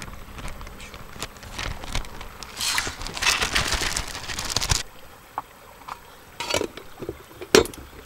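Uncooked rice grains poured from a plastic bag into an aluminium mess tin, a pattering rush of grains lasting about two seconds. Then a few separate light clinks as the metal lid is fitted on.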